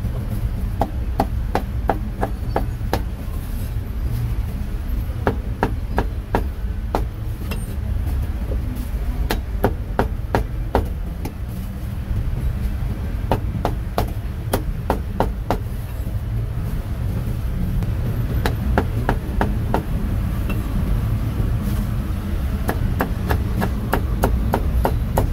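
Meat cleaver chopping roast meat on a chopping block: sharp strikes in quick runs with short pauses between. A steady low rumble runs underneath.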